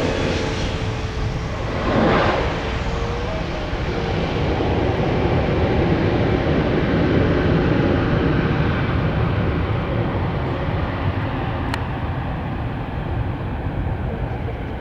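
Airbus A320neo jet engines (Pratt & Whitney PW1127G geared turbofans) running at high power in a steady roar, with a brief swell about two seconds in. The high hiss gradually dulls toward the end.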